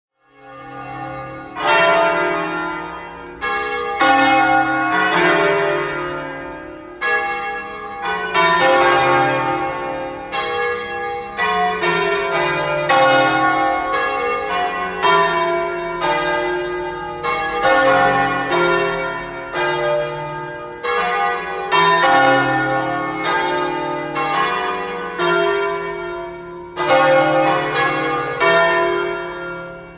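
Church bells ringing: several bells of different pitch struck one after another, about once a second, each stroke ringing on and fading under the next.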